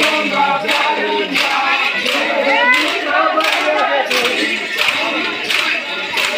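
A crowd chanting and shouting together, with sharp clacks of sticks striking one another in a steady rhythm, roughly three every two seconds.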